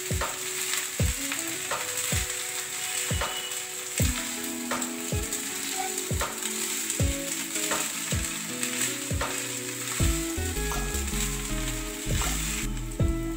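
Soaked flattened rice (chire) and diced vegetables sizzling in a hot non-stick kadai while a silicone spatula stirs and mixes them, with a soft stroke of the spatula against the pan about three times every two seconds.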